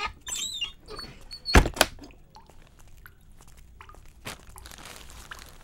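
A wooden door in a tiled washroom pushed shut with a loud thunk about a second and a half in, a second knock right after. A faint creak comes before it, and a light rustle follows near the end.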